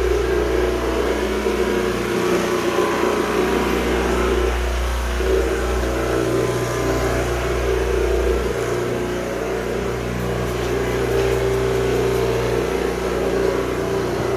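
Floor-cleaning machinery running steadily, a low motor hum whose tones shift every few seconds as the machine works the floor while old finish is being stripped.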